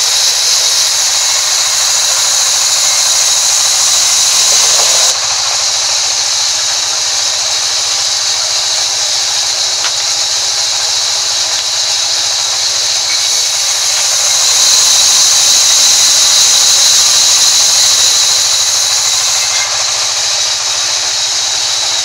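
Sawmill band saw running and cutting through a timber, a loud steady high hiss. It drops slightly about five seconds in and swells again for several seconds past the middle.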